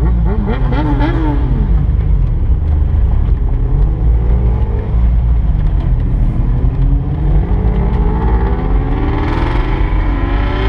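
Car engine heard from inside the cabin: a deep, steady rumble whose pitch climbs again and again as the car accelerates away through the gears. A higher engine note revs up and back down briefly about a second in.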